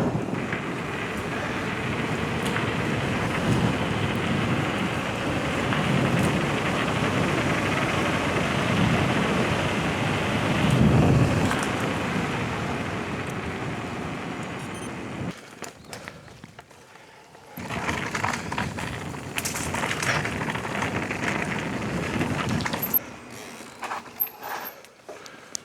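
Wind rushing over the camera microphone and tyres rumbling on the trail as a mountain bike rides along at speed. The noise drops away briefly about 15 seconds in, comes back, and fades again near the end as the bike slows.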